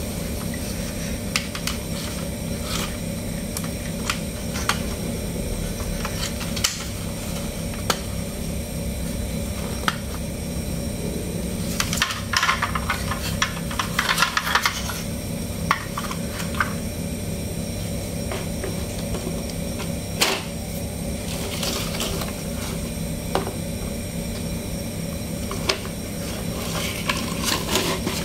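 Plastic toy dump trucks being handled: scattered clicks and clattering of plastic parts, busiest around the middle and again near the end, over a steady low hum.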